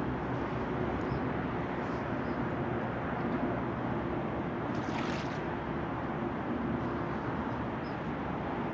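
Steady rushing background noise with a faint low hum underneath, and a short rustle about five seconds in.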